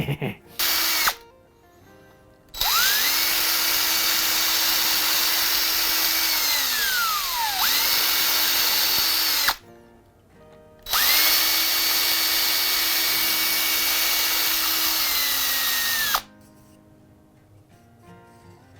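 Yellow power drill running in three long bursts plus a short blip at the start, used for drilling or driving screws into hardwood instead of risking a bit by hand. Each run spins up quickly to a steady whine. The first run slows and drops in pitch before stopping, and the others cut off sharply.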